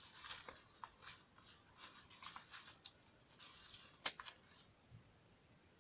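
Faint rustling and crinkling of paper craft pieces being handled, with a sharp click about four seconds in.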